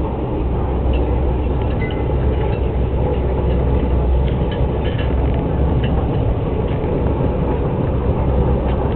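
Orient Express train running, heard from inside a dining car: a steady low rumble with scattered faint clicks.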